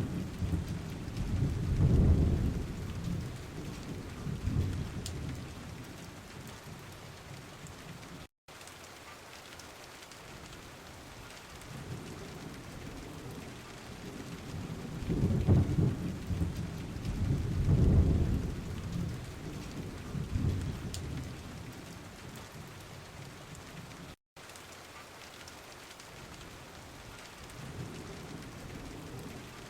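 Steady rain falling with rolling thunder: a rumble about two seconds in, a longer double rumble in the middle, and another building near the end. The sound cuts out completely for an instant twice.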